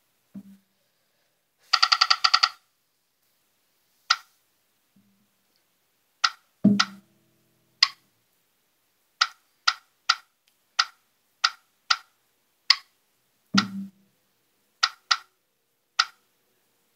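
Computer keys and mouse buttons clicking one at a time, about a dozen sharp clicks, with a quick rattling run of clicks about two seconds in. Three dull thumps with a short low ring come near the start, about a third of the way in, and past the middle.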